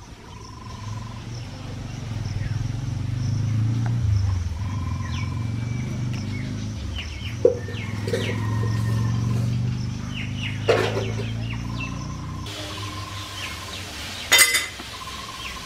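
Birds calling outdoors: a short, level whistled note repeated every second or two, with some higher chirps. Underneath is a low steady hum that swells and then drops away about twelve seconds in, and three sharp knocks about three seconds apart.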